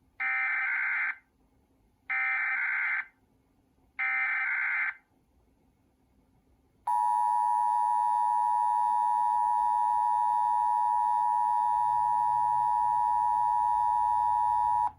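Emergency Alert System SAME header: three identical one-second bursts of data screech about two seconds apart. After a short gap comes the steady two-tone EAS attention signal for about eight seconds, cutting off sharply near the end. This is a received hurricane warning being relayed through the station's alert equipment.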